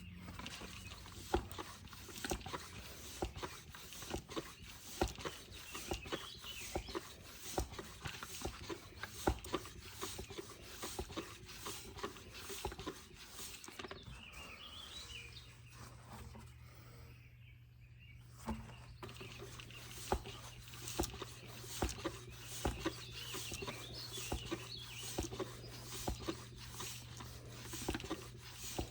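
Irregular light clicks, taps and rattles of hand tools and metal parts being handled while working on an e-bike. A low steady hum comes in about halfway through.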